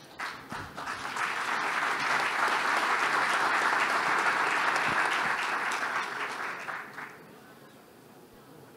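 Audience applauding: a few separate claps build into steady applause that dies away about seven seconds in.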